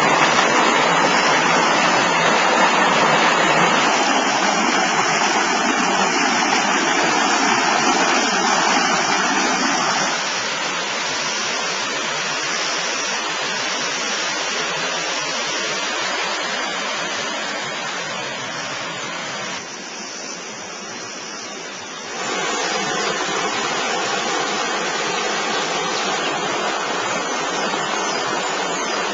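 Steady rush of flowing water. It drops in loudness abruptly about ten seconds in, dips further a little before twenty seconds, and comes back up about two seconds later.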